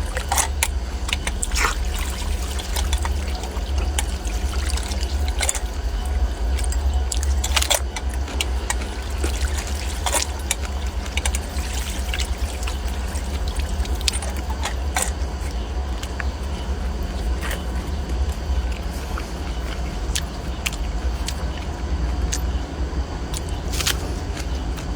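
A steady low rumble of wind buffeting the microphone, with scattered sharp clicks and taps.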